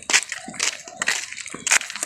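Irregular crackling and rustling, with several sharp crunches scattered through.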